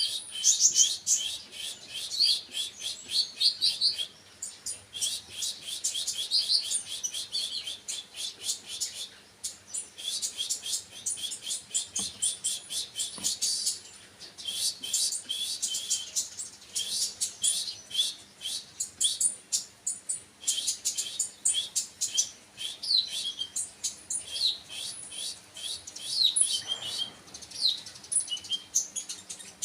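Small songbird chirping in rapid, dense runs of high-pitched notes, broken by short pauses every few seconds.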